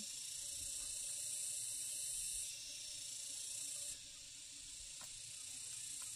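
A high-pitched insect chorus buzzing steadily, easing off about four seconds in.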